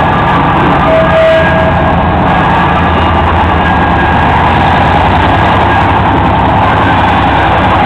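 EMD G22U diesel-electric locomotive's 12-cylinder two-stroke engine running steadily under load as it pulls freight cars over a level crossing. A short steady whine comes in about a second in.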